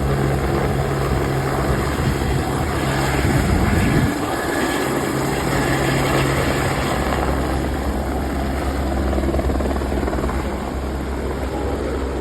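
Helicopter running close by with a loud, steady rotor and engine noise; about four seconds in its low hum changes abruptly, and a deeper hum sets in a few seconds later.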